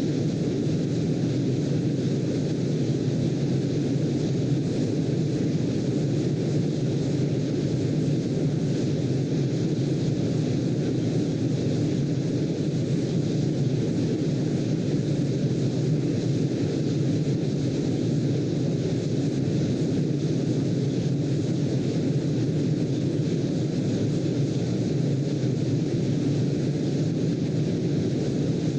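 Steady sleep-aid noise, deep and heavy in the low range with a fainter hiss above. It holds at an even level throughout, with no rise and fall of waves.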